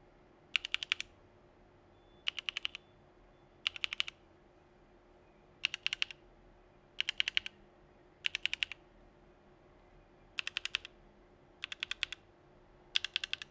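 Geonworks Frog mechanical keyboard with lubed TTC Flaming Snow linear switches on an aluminum plate and CRP Desko keycaps. A hand presses short quick runs of four to six keys, nine runs about every second and a half.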